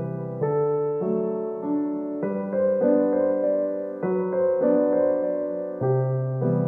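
Background piano music: a gentle piano tune with new notes and chords every half second or so.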